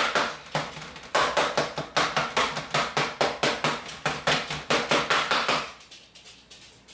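Rapid, repeated strikes of a metal kitchen utensil into raw beef pot roast in a metal roasting pan, about five a second, stopping near the end.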